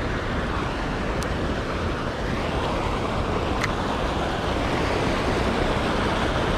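Rain-swollen water pouring through a lake spillway: a steady, even rush of churning water. Two faint short ticks sound over it, about a second and three and a half seconds in.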